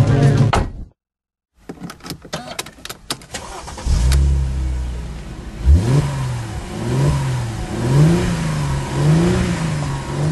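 Mercedes-Benz SLK 350's 3.5-litre V6 engine started, then revved in short blips about once a second, each rising and falling in pitch. A run of sharp clicks comes before the start.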